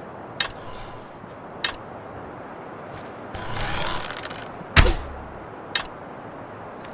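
Bow and arrow sound effects: a few sharp clicks, a whoosh lasting about a second, then a loud sharp snap with a low thud a little later, and one more click near the end.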